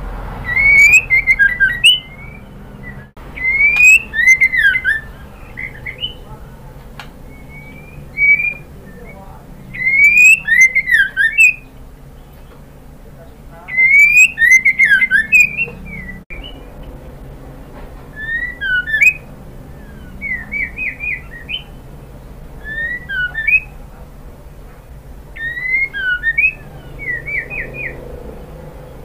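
Female white-rumped shama calling: loud whistled phrases, each a rising whistle followed by a quick run of falling notes, repeated every few seconds, with shorter runs of chirps in the second half.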